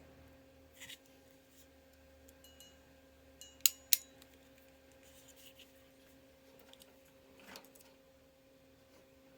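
Hand crimping tool closing on a Dupont crimp terminal: two sharp metallic clicks about a quarter second apart, a few seconds in, with faint handling rustles before and after. A steady low hum runs underneath.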